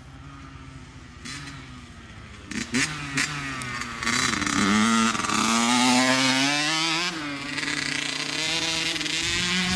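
Small two-stroke dirt bike engine, faint at first, then much louder as the bike comes close about four seconds in. It revs with its pitch rising and falling and keeps running loud as the bike rides on.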